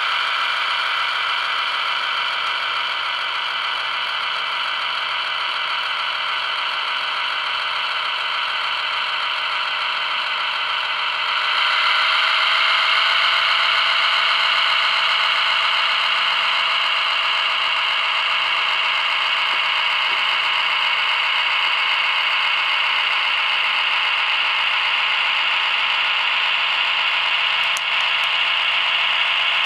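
HO-scale model train running along the track: the CSX MP15 locomotive model's motor and gears whirring, and its wheels and those of the covered hopper cars rattling on the rails. The sound is steady and grows louder about twelve seconds in, as the hopper cars come past.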